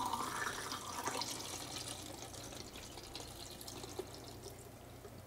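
C-41 bleach-fix (blix) working solution poured from a plastic jug into a film developing tank, a steady liquid pour that grows fainter toward the end.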